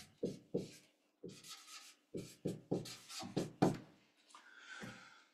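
Marker pen writing on flip-chart paper: a run of short, scratchy strokes with brief pauses between them as the letters of a word are written.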